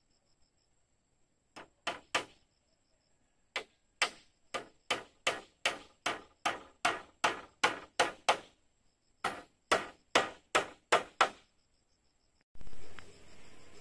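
A hand tool striking wood in runs of sharp blows, about two or three a second, with short pauses between runs. Near the end a louder, different noise starts suddenly and slowly fades.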